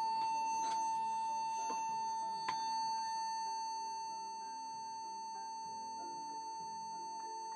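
A steady, single-pitched whistle-like test tone from a handheld tone generator held to the microphone. It modulates the President Taylor IV CB radio's AM transmission for a power test, easing down slightly about halfway. Soft piano background music plays underneath.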